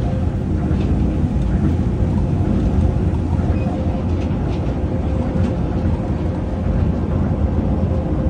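Tokyo Monorail car running at speed along its elevated concrete beam, heard from inside the cabin: a steady low rumble from the rubber tyres on the guideway, with a faint steady hum over it.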